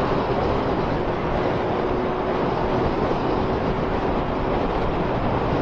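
Wind rushing over the microphone at road speed on a Honda Fireblade, with the bike's inline-four engine running at steady revs underneath.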